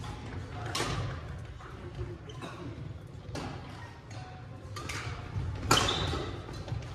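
Badminton rackets striking shuttlecocks in rallies, sharp smacks coming irregularly about once a second, echoing in a large gym hall.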